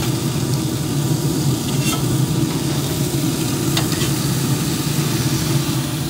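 Burger patties sizzling as they sear in a very hot cast iron pan on a pellet grill, over a steady low hum. A couple of light clicks of a metal spatula against the pan.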